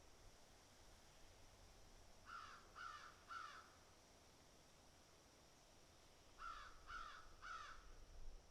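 Crow cawing: two series of three harsh caws, the second series about four seconds after the first, over a faint steady high-pitched insect drone.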